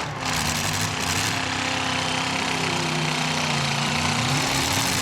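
Demolition-derby truck engines running loudly and revving, several engines at once, their pitch rising and falling.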